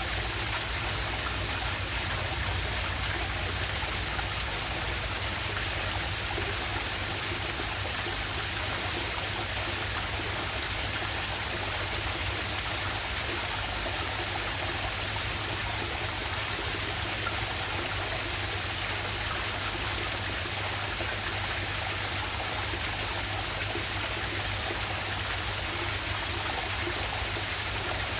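Waterfall and stream water rushing, a steady even roar with no change.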